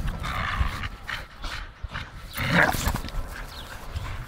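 Two dogs tugging and wrestling over a rubber tyre, giving short, noisy vocal bursts in play, the loudest about two and a half seconds in.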